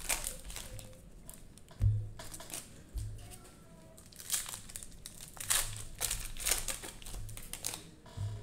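Plastic cello wrapper of a trading-card pack crinkling and tearing as it is opened by hand, in irregular crackles, with a couple of low thumps about two and three seconds in.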